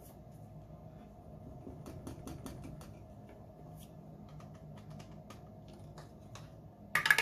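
Hands working at a table: a scatter of light clicks and taps, like calculator keys, then a short sharp rustle of paper or card near the end.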